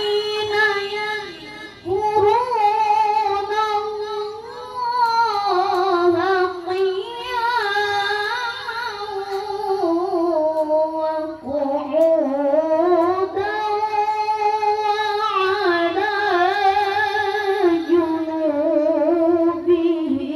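A child reciter chanting the Quran in melodic tilawah style with a high-pitched voice, holding long phrases with wavering ornaments. There are brief breaths about two seconds in and again a little past the middle.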